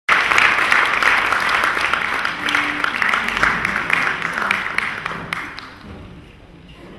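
Concert audience applauding, dying away over the last couple of seconds.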